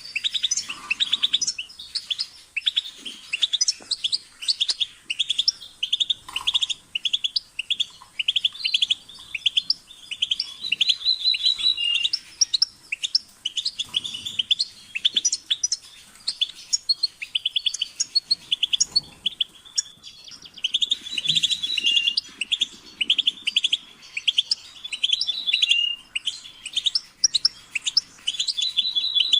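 European goldfinch singing: a fast, continuous twittering of high chirps and short trills, delivered in phrases separated by brief pauses.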